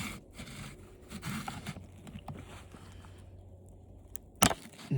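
Hand tools scraping and prying at the plastic parts of an old TV, with a sharp snap about four and a half seconds in as the plastic gives.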